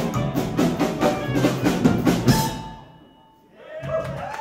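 A live Americana band of drum kit, electric bass, acoustic guitar and clarinet plays loudly, heard from on stage with the drums prominent, and closes the song on a final hit about two seconds in that rings out and dies away. A voice starts up near the end.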